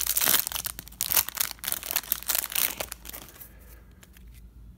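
Plastic wrapper of a baseball card pack being torn and peeled open, a dense run of crinkling and crackling for about three seconds that then dies down.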